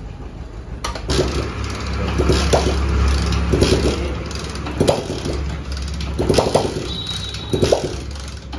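A motorcycle engine running at idle, a steady low hum with irregular clatter over it, starting suddenly about a second in.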